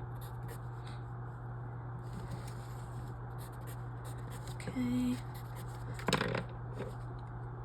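Faint scratching of writing strokes as a puzzle grid is filled in, over a steady low hum, with a brief louder rustle a little after six seconds.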